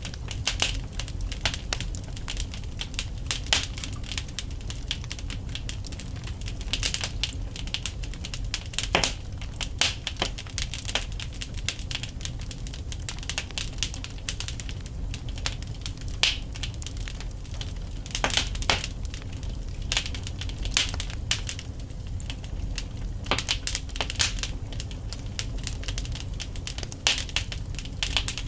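Wood fire burning in a fireplace: logs crackling and popping at irregular intervals over a steady low rumble of flame.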